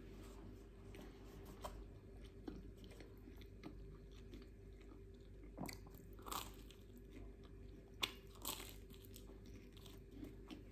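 Close-miked eating of a brioche pastry: soft bites and chewing, faint, with a few louder crunchy bites around the middle and again about eight seconds in.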